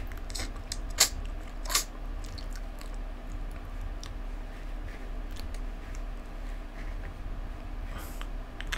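Low steady hum with two sharp clicks, about one second and nearly two seconds in, and a scattering of fainter ticks.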